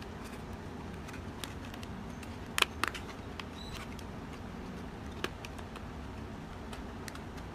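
Faint handling of a cardboard truck cab: light rustles and a few small taps and clicks, the clearest pair about two and a half to three seconds in, over a steady quiet background.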